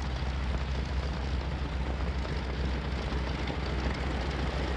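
1929 Ford Trimotor's three radial engines running as the airplane taxis: a steady low drone with propeller noise over it.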